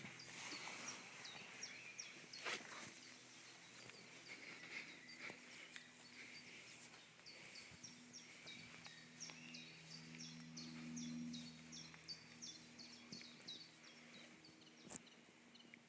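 Small birds chirping in quick, repeated high notes over faint outdoor background noise, with a faint low drone that swells about ten seconds in.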